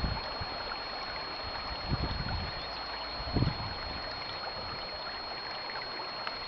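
Outdoor wind noise: a steady rushing hiss with gusts buffeting the microphone twice, about two seconds in and again a little past the middle, under a thin steady high whine.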